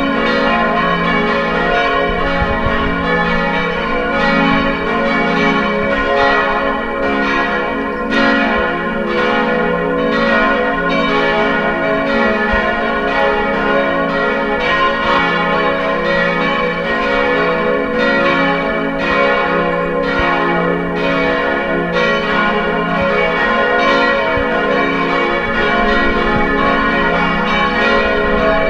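Church bells ringing: several bells struck over and over in a continuous peal, their tones overlapping and ringing on.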